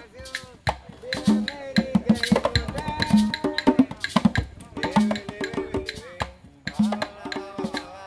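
Afro-Cuban rumba percussion music: hand-played conga drums under a sharp wood-block clicking pattern, with a deep open drum tone coming back about every two seconds.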